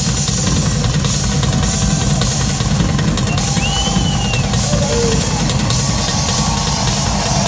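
Live heavy-metal drum solo on a full rock drum kit, with a fast, dense run of bass-drum and tom hits under cymbal wash, heard through the arena PA. A short high whistle rises and falls about halfway through.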